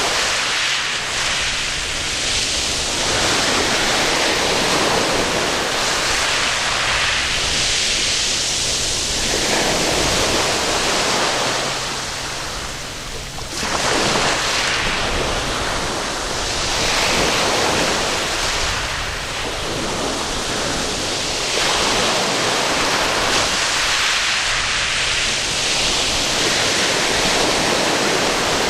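Waves breaking and washing up a sandy beach, the surf swelling and easing every few seconds.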